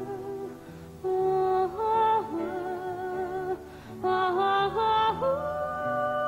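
A female solo voice sings a slow ballad melody with vibrato over quiet instrumental accompaniment. She holds several notes with short breaths between them, then rises about five seconds in into a long held note.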